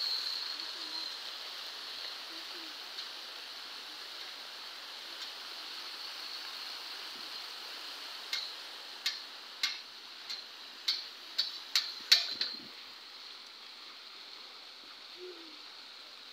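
Fountain water splashing steadily. About halfway through comes a run of about nine sharp, irregular clicks over some four seconds.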